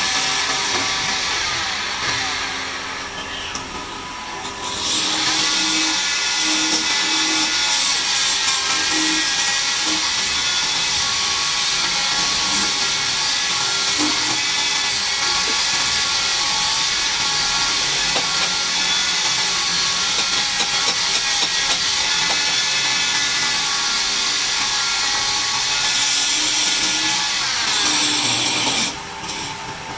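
Wood lathe running with a long dowel spinning, its motor giving a steady whine under a loud hissing scrape of a tool working the spinning wood. The scraping eases off about two seconds in, comes back near five seconds, and stops about a second before the end.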